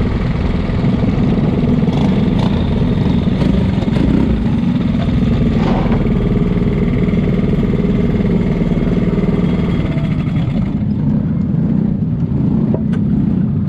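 Briggs & Stratton LO206 single-cylinder four-stroke kart engines running at low speed and idling as the karts roll in and stop in line. The higher part of the sound drops away near the end, leaving a steady low drone.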